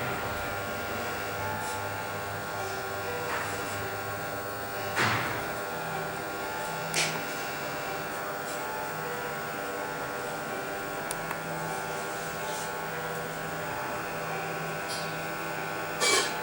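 Steady electric motor hum, with a few short sharp sounds about five, seven and sixteen seconds in.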